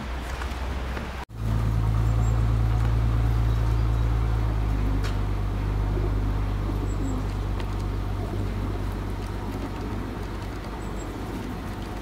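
Steady low rumble of a motor vehicle's engine running nearby. It cuts in after a brief dropout about a second in, with a few faint clicks over it.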